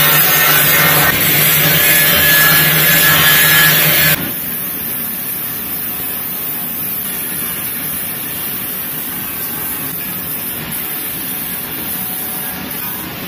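A loud power tool works on metal for about four seconds, then cuts off abruptly. For the rest, an angle grinder with a flap disc runs steadily against the steel differential cradle of an NA Miata, sanding rust off.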